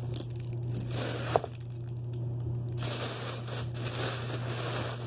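Tissue paper crinkling and rustling as it is handled and stuffed into a paper gift bag, with one sharp knock about a second and a half in, over a steady low hum.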